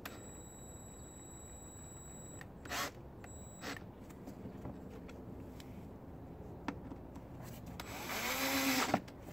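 Cordless electric screwdriver driving the long T25 screws of an engine air-filter housing cover. A few light clicks come first, then near the end the screwdriver runs for about a second, its pitch dipping and rising as the screw is driven home.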